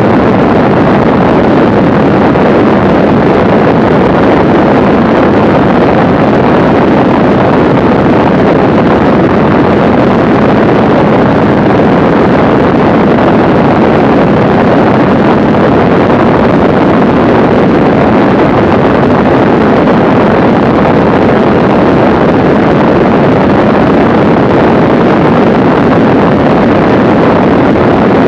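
Steady, loud rush of engine and propeller noise mixed with wind buffeting the microphone, from a Mooney M20C single-engine light aircraft in flight at about 115 mph. It holds even throughout, with no changes in power.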